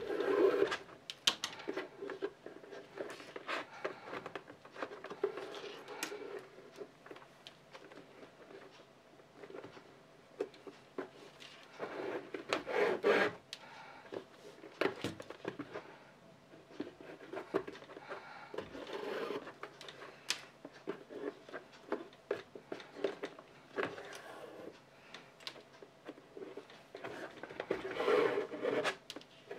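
Hand work on leather: irregular rubbing and scraping strokes, coming in bursts, with scattered light clicks and taps.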